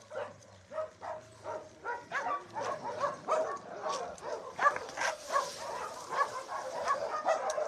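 Several dogs barking and yipping, many short barks overlapping one another and building from about a second in.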